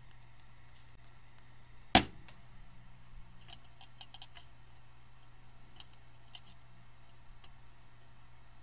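Small metal clicks and ticks from a hand tool working transistor pins out of a circuit board while a soldering iron heats them, with one sharp click about two seconds in, over a faint steady hum.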